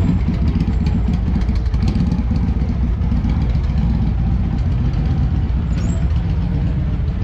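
Several motorcycle engines running steadily with a deep, low rumble.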